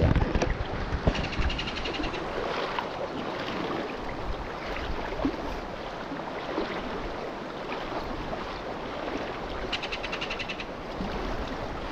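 Ringed kingfisher giving two rapid rattling calls, each about a second long, one soon after the start and one near the end, over the steady rush of a shallow stream.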